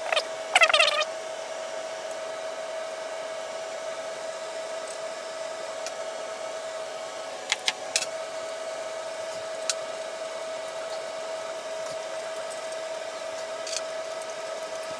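A steady whirring hum with a constant whine runs throughout. Over it come a few metallic clinks and taps of hand tools and hardware against the cast-iron engine, the loudest a short ringing clink about half a second in, with three sharp clicks around the middle.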